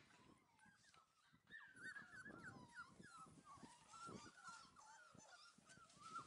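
Five-week-old heeler puppies whining and squeaking, a quick run of short high calls that bend up and down, faint, over soft scuffing of paws on dirt.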